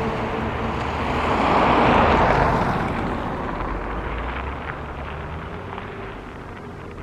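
A vehicle passing by: a rushing noise swells to its loudest about two seconds in, then slowly fades away.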